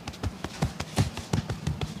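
A barber's hands slapping and tapping rapidly in a percussive massage, about five strikes a second, uneven in strength.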